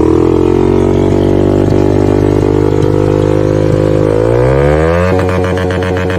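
Single-cylinder motorcycle engine revved through its exhaust, held at steady revs, then climbing about four seconds in and held higher with a rougher, pulsing note.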